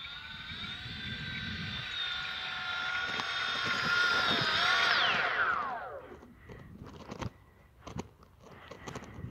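The propeller motors of an RC C-130 Hercules model sit at low throttle with a high, many-toned whine, then spool down in a falling glide and stop about five or six seconds in. Light rustling steps in dry grass follow.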